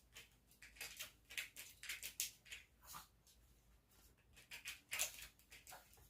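A small dog's claws scratching and pattering in short, quick scrabbles, in bursts about one and five seconds in.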